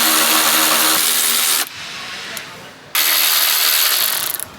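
Power tool run in two bursts of a second or two each, with a short pause between, removing the old door hinge bolts from a Land Rover Defender's door pillar.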